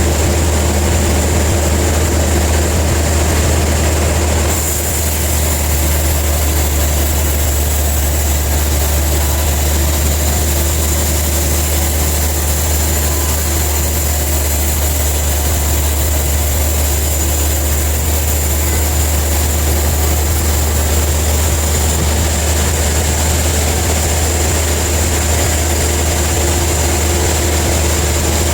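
Sawmill machinery running steadily: a loud low hum under a constant hiss, with a thin high whine. The sound shifts slightly about four and a half seconds in.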